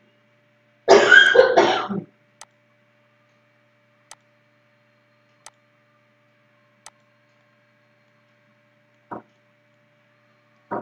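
A person clears their throat with two harsh coughs about a second in. After that come single computer-mouse clicks every second or so, one of them louder near the end, over a faint steady hum.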